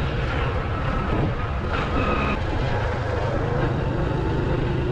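Motorcycle engine running steadily while riding, with wind noise on the helmet-mounted camera.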